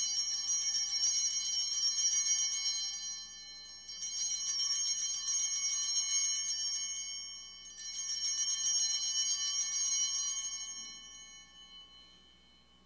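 Altar bells (sanctus bells) shaken in three long peals of bright, shimmering ringing, marking the elevation of the chalice at the consecration. The third peal fades away near the end.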